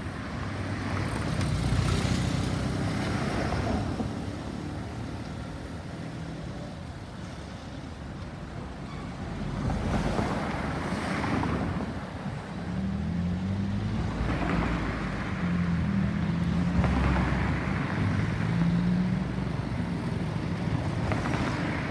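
Road traffic: several vehicles passing one after another, their engines and tyres swelling and fading, with some wind on the microphone.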